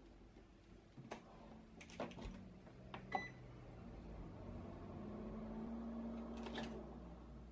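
Baking tray going into a Toshiba combination microwave oven, with a few clicks and clunks as the door shuts, one short beep from the control panel about three seconds in, then the oven running in bake mode with a steady low hum.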